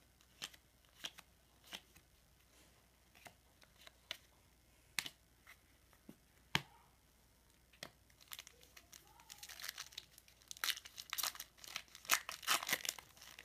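Trading cards handled with scattered light clicks, then a foil card-pack wrapper crinkling and tearing open over the last few seconds.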